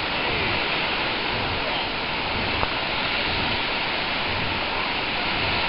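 Ocean surf washing on the beach: a steady, continuous rush of broken waves, with one small click about two and a half seconds in.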